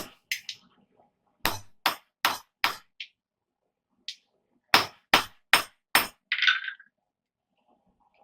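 Hand hammer striking hot steel rivet stock set in a button head rivet header, in sharp ringing blows: about four quick blows, a pause of about a second and a half, then four more, followed by a short scraping rattle.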